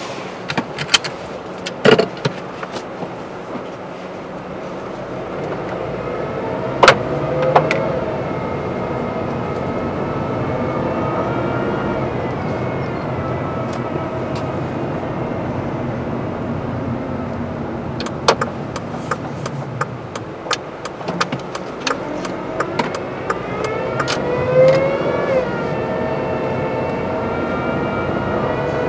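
Honda Civic driving, heard from inside the cabin: a steady engine hum over tyre and road noise. The engine pitch rises about three-quarters of the way through as the car accelerates. Scattered sharp clicks and knocks sound throughout.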